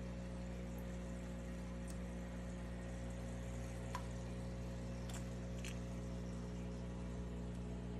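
Steady electric hum of an aquarium air pump feeding an airstone, with a few faint clicks near the middle.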